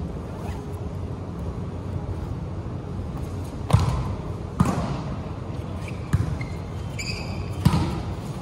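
A volleyball being struck during a rally: four sharp slaps starting a little past halfway, roughly one to one and a half seconds apart, each ringing briefly in the big hall.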